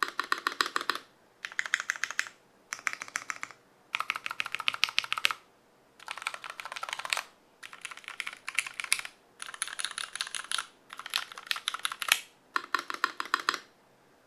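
Typing on a custom mechanical keyboard with lubed Cherry MX Vintage Brown switches on a brass plate, no foam, under GMK keycaps: quick runs of key clicks about a second long, broken by short pauses.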